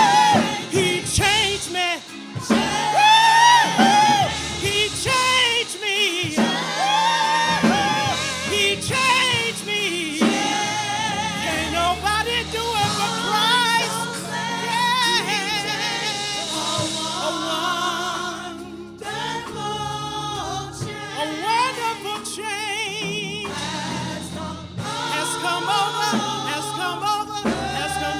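Live gospel singing: voices sing with strong vibrato over held instrumental chords.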